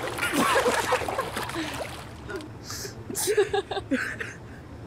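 Water splashing in a swimming pool, with laughter and giggling. After about two seconds the splashing stops abruptly, leaving soft laughs and breathy voices.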